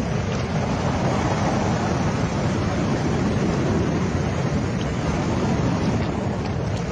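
Steady wind buffeting the microphone over the wash of sea surf on a pebble beach.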